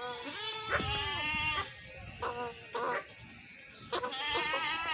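Young goats bleating: several high-pitched bleats, the first and last drawn out, with a few short ones between.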